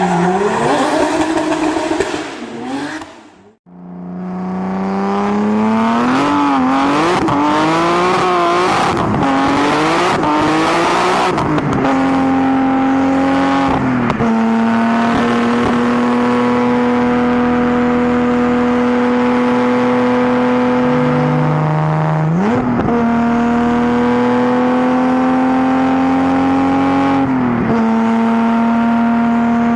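BMW E30 engine at high revs, with a hard cut a few seconds in. The engine then climbs and wavers in pitch while revving, and from about twelve seconds holds a steady high note for long stretches. The revs dip briefly and come back up around fourteen, twenty-two and twenty-eight seconds.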